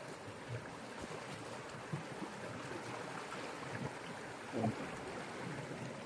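Fast river current rushing and churning past a wooden boat and rocks: a steady wash of water. A brief low sound stands out a little past the middle.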